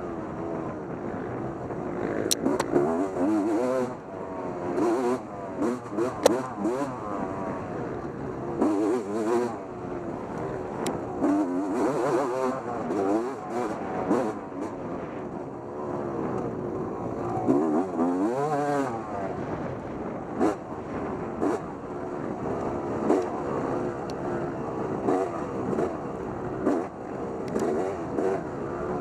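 Motorcycle engine revving up and down over and over, its pitch rising and falling every second or two as the throttle is worked, with scattered sharp clicks and knocks.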